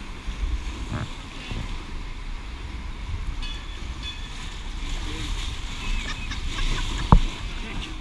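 Rushing white water around a round raft on a river rapids ride, with wind buffeting the camera microphone and faint voices. A single sharp thump about seven seconds in.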